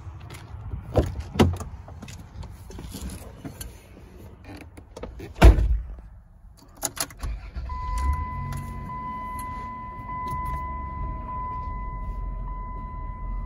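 Minivan door sounds: clicks of a handle and latch, then a car door shutting with a loud thump. About two seconds later the engine starts and settles into an idle, with a steady electronic warning tone from the dashboard sounding over it until near the end.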